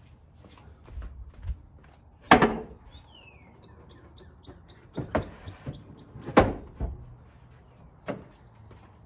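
Wooden panels of a folding stove box being handled and set down on a pickup's bed floor: a series of sharp wooden knocks and clunks, the loudest about two seconds in and another about six seconds in.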